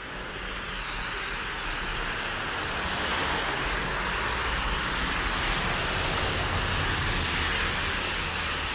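Street traffic: a steady hiss of tyres with a low engine hum, swelling slowly over several seconds and easing off a little near the end.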